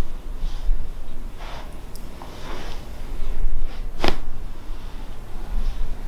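A single sharp crack about four seconds in, a neck (cervical spine) joint popping as the head is held and turned during a chiropractic neck adjustment, among softer breathing and handling sounds.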